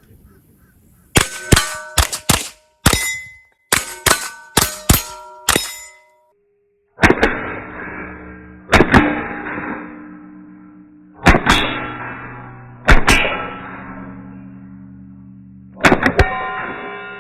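A rapid string of rimfire rifle shots, each answered by the ring of struck steel target plates, over about five seconds. After a short pause come five loud struck chords, each ringing out and fading slowly.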